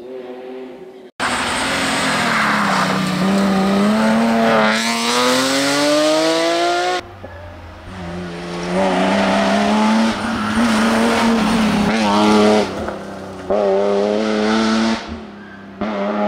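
BMW Z3 M rally car's straight-six engine at full throttle on a stage, cut together from separate passes. The revs drop as it brakes for a corner, then climb hard through the gears with quick upshifts.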